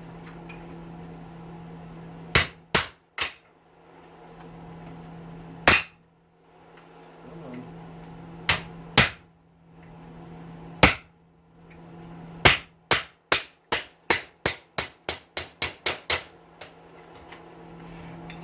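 Hammer striking a punch to drive a stubborn brass bushing out of a hedge trimmer's cast aluminium gear housing. Sharp strikes come singly and in pairs at first, then a quick run of about a dozen, some three or four a second.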